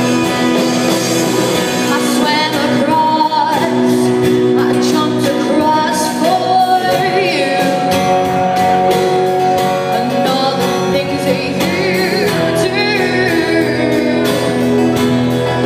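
A live band playing a song: a woman sings lead over electric and acoustic guitars and a drum kit keeping a steady beat.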